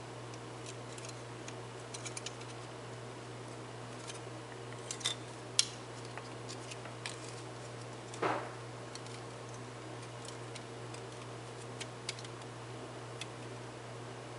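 Flight Miniatures snap-together plastic model parts being handled and pushed together: scattered light clicks and taps of hard plastic, with a sharper click about five and a half seconds in and a short scrape of plastic on plastic about eight seconds in.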